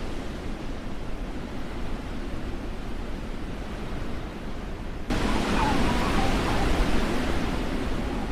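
Steady rushing noise of wind and driving. About five seconds in it changes abruptly to a louder, brighter rush.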